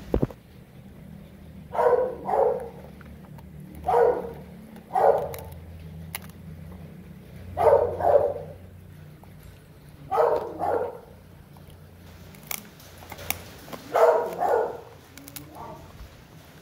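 A dog barking in pairs, two quick barks at a time, five times over with a couple of seconds between each pair.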